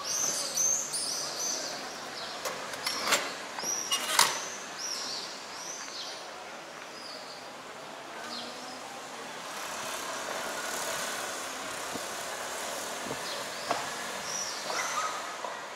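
Town street ambience: small birds chirping over and over for the first six seconds or so, two sharp knocks about three and four seconds in, then a steady hum of traffic that swells as a vehicle passes midway.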